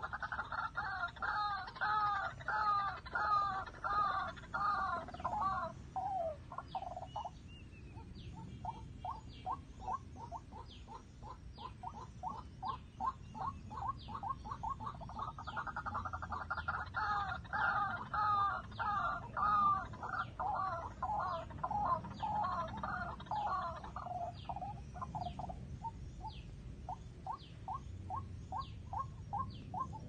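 White-breasted waterhen calling: a long series of rapidly repeated notes that swells loud twice, with softer calling carrying on between the loud bouts.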